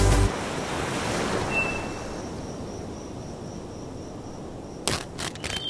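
Background music cuts off just after the start, leaving a steady rushing beach ambience of surf and wind, with one short high whistle about a second and a half in. Near the end a run of rubbing and scraping noises begins.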